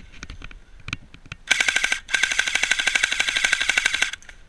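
M4-style airsoft rifle firing on full auto: a few single clicks, then a short burst about a second and a half in, followed by a longer burst of rapid, evenly spaced shots lasting about two seconds.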